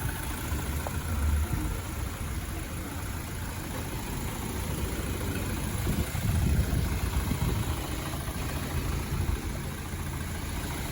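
2013 BMW X3 engine idling steadily with the air conditioning running after repair, a low, even rumble.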